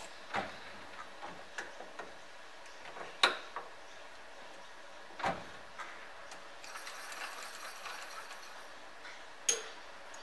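Scattered metal clicks and knocks from hand work on a lathe's four-jaw chuck, which is turned by hand and has its jaws adjusted while the work is trued against a dial indicator. The loudest knock comes about three seconds in, with others around five seconds and near the end, and a soft rustle in between.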